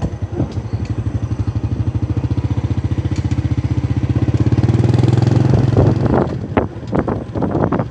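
Small motorcycle engine running under way with a fast, even beat that grows louder about four seconds in. Near the end it fades under gusts of wind buffeting the microphone.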